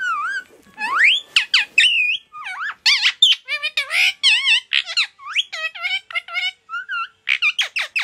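Indian ringneck parakeet chattering: a fast run of squeaky chirps and whistles that bend up and down in pitch, with a long rising whistle about a second in and another near the end.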